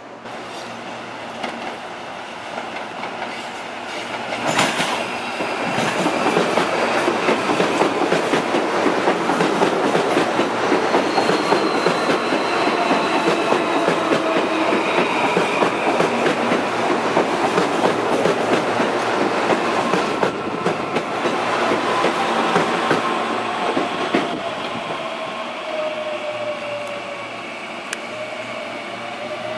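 Electric commuter train passing close by: wheels clattering over the rails, building up about four seconds in, with a thin high squeal partway through. The sound eases toward the end, where a whine falls and then rises again.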